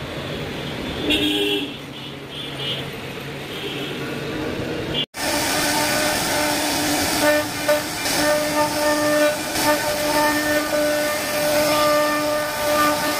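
CNC router spindle whining at high speed while its bit carves wood: a steady whine in several stacked tones that drops out briefly now and then, over a hiss of cutting. The sound cuts out for an instant about five seconds in.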